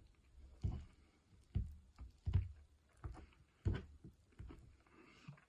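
A person chewing a mouthful of omelette, a soft low thud with each chew, roughly one a second.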